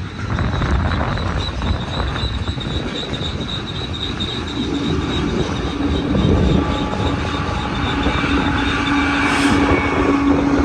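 Freight train rolling by, with heavy wind rumble on the microphone. A thin, high steady squeal runs through the first part, and a lower steady whine comes in about halfway and grows louder.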